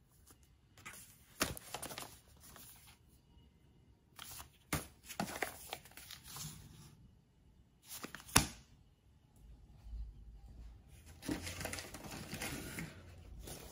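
Paper sewing-pattern envelopes rustling and crinkling as they are handled and leafed through, with a few sharp taps, the loudest about eight seconds in.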